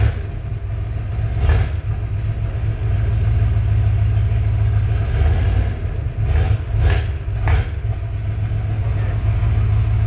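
Early Ford Bronco's V8 engine running steadily with a knock, which the mechanic listening to it diagnoses as piston slap.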